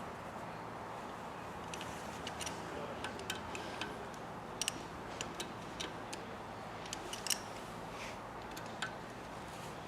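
Irregular light metallic clicks and ticks of hand tools working the screws of a vertical pump's shaft coupling as it is tightened, a few scattered over several seconds, over a faint steady hiss.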